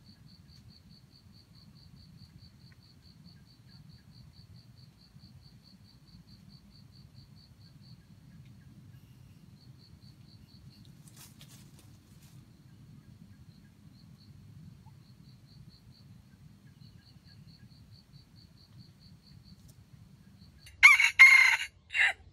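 A red junglefowl rooster crows once near the end, a short loud crow in two parts with a brief break before the last. Before it, faint fast insect ticking, a few ticks a second, comes in runs.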